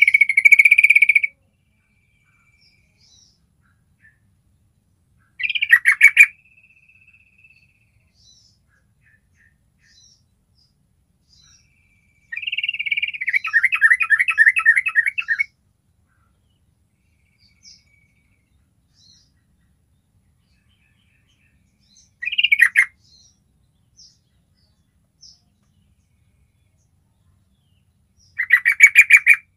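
Yellow-vented bulbul calling in five short bursts of rapid chattering notes, the longest lasting about three seconds near the middle, with pauses between them.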